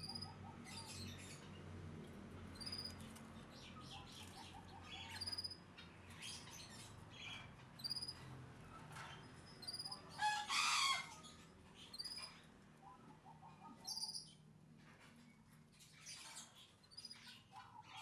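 Wing flapping, rustling and scuffling of a young barred plaintive cuckoo in a bamboo cage as it catches and eats crickets, with a loud flurry about ten seconds in. Short high chirps repeat every second or so throughout.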